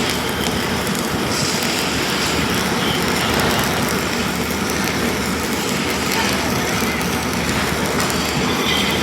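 Self-shielded flux-cored welding arc (Lincoln Innershield NR305, 5/64-inch wire) crackling steadily through a weld pass.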